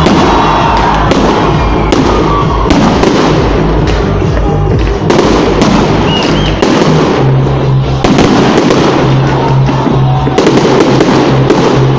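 Fireworks going off in a dense barrage: many sharp bangs and crackles in quick succession, with a few short whistles. Music plays loudly underneath.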